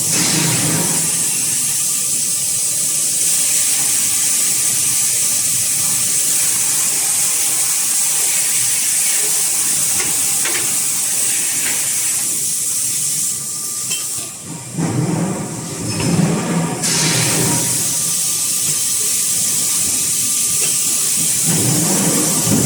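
Steady loud hiss of compressed-air spray from an automatic die lubrication system in a forging line. Past the middle, the hiss stops for about two seconds while a lower pitched machine drone comes up, then the hiss resumes.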